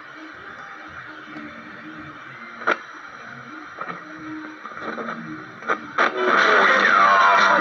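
Candle clock radio's speaker hissing with static between stations, with faint broken fragments of a weak signal and a few sharp clicks. About six seconds in, a station comes in much louder with guitar music.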